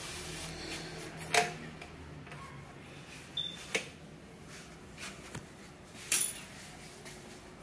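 Handling noise from a handheld camera being moved around: a few scattered light clicks and knocks over a faint low hum that fades after the first couple of seconds.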